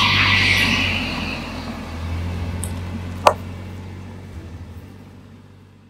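Steady low mechanical hum, fading out gradually, with a brief high buzz at the start and one sharp click about three seconds in.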